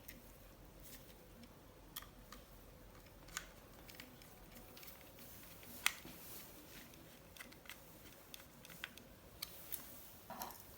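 Faint, scattered clicks and taps from hands working on a laptop's plastic and metal parts while a hard drive is fitted into its bay. The sharpest click comes about six seconds in, with a few more close together near the end.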